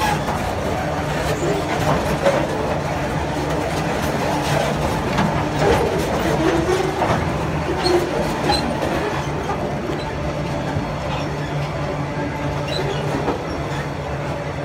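Empty alumina hopper wagons rolling past close by, their wheels clattering over the rail joints in a steady run of knocks.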